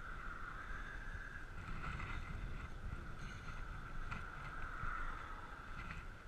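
Bicycle riding on 700x35 Nimbus Armadillo tyres: a steady mid-pitched hum of the tyres rolling on the road over low wind rumble on the microphone, with a few faint ticks.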